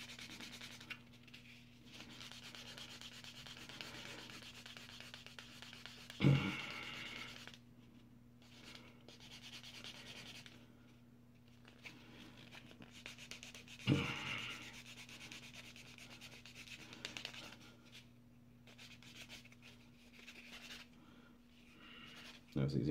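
Fingernail buffing block rubbed in quick back-and-forth strokes over small plastic model-kit parts, a soft, faint scratchy sanding that scuffs the smooth plastic so primer will hold. Two short knocks break in, about six and fourteen seconds in.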